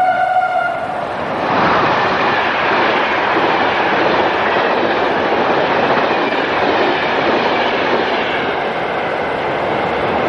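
FS Class 625 steam locomotive at a standstill: the end of a steady whistle blast in the first second or so, then a loud, steady rush of escaping steam.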